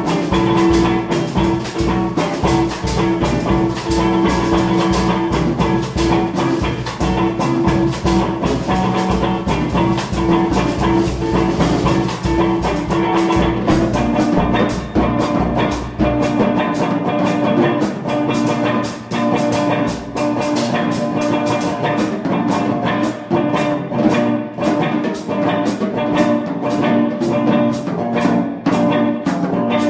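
Guitar and drum kit playing together in a live improvised-style duo, sustained guitar tones over a dense run of drum and percussion strokes. The deepest bass drops out about halfway through, leaving guitar and lighter drumming.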